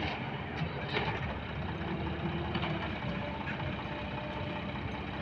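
Diesel engine of an excavator or loader running steadily, with a few faint clicks.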